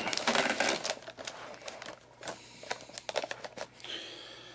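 Plastic wrapping around a motherboard rustling and crinkling as it is pulled back by hand. Denser in the first second, then scattered light crackles and ticks, dying away near the end.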